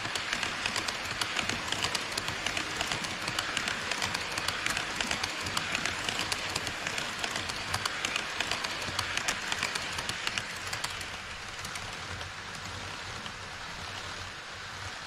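HO-scale model E5 series Shinkansen running past on KATO Unitrack: a steady rushing with rapid clicks as its wheels cross the track joints. It fades about 11 seconds in, leaving a fainter steady hiss.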